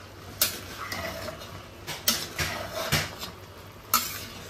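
A spatula stirring wet, half-cooked rice in an enamelled cast-iron pot, scraping and knocking against the pot about half a dozen times.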